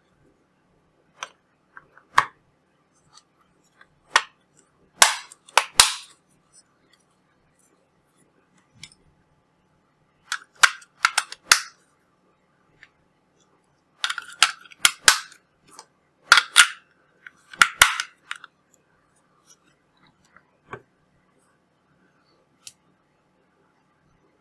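Plastic case and parts of a carbon monoxide detector being handled and fitted back together: sharp clicks and knocks, some single, some in quick clusters of three or four, with quiet gaps between.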